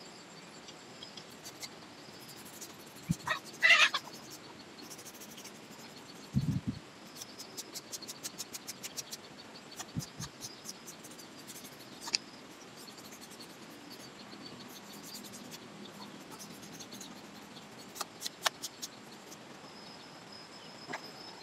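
Faint outdoor ambience with a steady high insect drone, scattered light clicks and taps, and a few dull knocks. A brief animal call stands out about three and a half seconds in.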